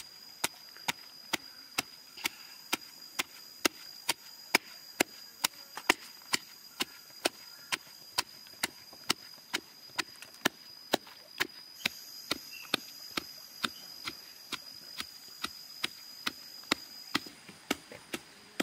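Stone pestle pounding red chili peppers in a stone mortar, steady strikes a little over two a second.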